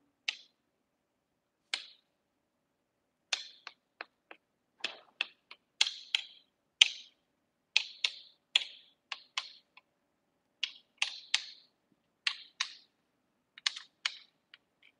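Metal spoon scraping and tapping against the rim of a steel plate in short, irregular strokes, working loose a steamed barnyard-millet dhokla from the plate.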